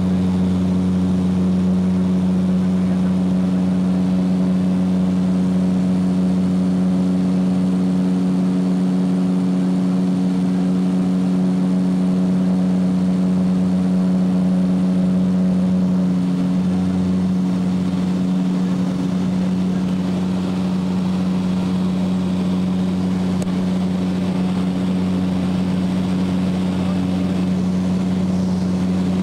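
Aircraft engines and propellers droning steadily, heard inside the cabin: a loud, even hum with a strong low tone and several higher tones above it, some of the higher tones fading about halfway through.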